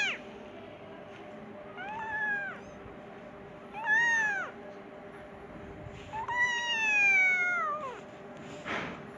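Persian kitten meowing three times, each high call rising then falling in pitch, the third long and sliding down, as when calling for food or for its mother. A brief rustle-like noise comes near the end over a faint steady background hum.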